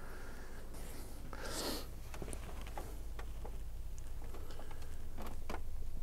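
Cooling fans of an open, running PC server with a steady low hum. A soft rustle comes about one and a half seconds in, followed by a few light ticks of handling.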